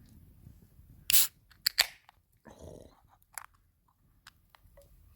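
A person taking a sip of pale ale from a glass and swallowing: a short loud slurp about a second in, then a couple of quick mouth clicks and a gulp.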